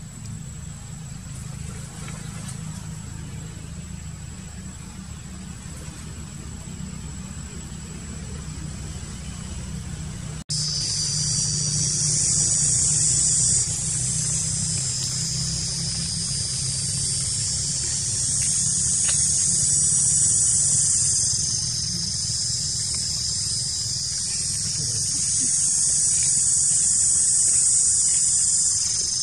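A low steady rumble with a faint thin high tone. About ten seconds in the sound cuts abruptly and a loud, shrill insect chorus takes over, swelling and easing over the low rumble.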